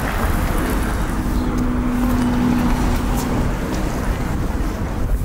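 Street traffic close by: a motor vehicle running past over a steady low rumble, with a held hum for a couple of seconds in the middle.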